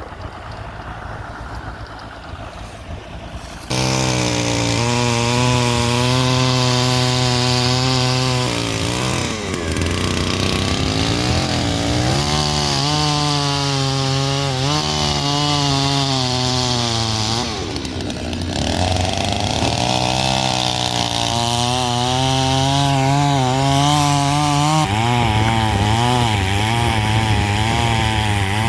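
Chainsaw running loud, cutting in suddenly about four seconds in, its engine pitch shifting and wavering as it works, with a few brief dips.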